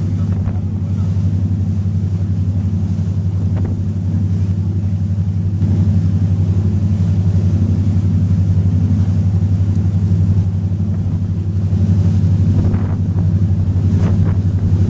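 Motor boat's engine running steadily while under way, a constant low drone with an even pulse, over a hiss of wind and water rushing past.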